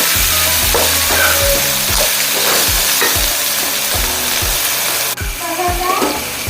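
Dried squid and spices sizzling in a hot pan. The sizzle is steady and grows thinner about five seconds in.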